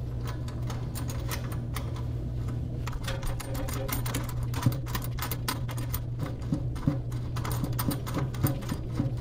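Rapid, irregular clicking and light rattling of a faucet retainer nut being spun by hand up the threaded shank, which is coated with plumber's grease, over a steady low hum.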